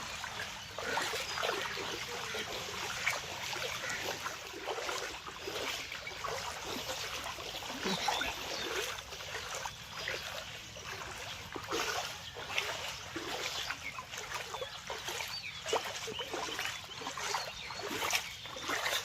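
Floodwater splashing and trickling: a steady wash of moving water broken by many small, irregular splashes.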